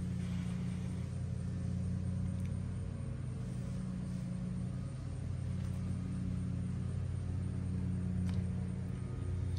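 Steady low hum and rumble, like a running motor, with a few faint ticks.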